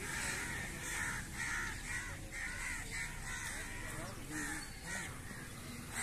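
Crows cawing repeatedly, about two harsh calls a second.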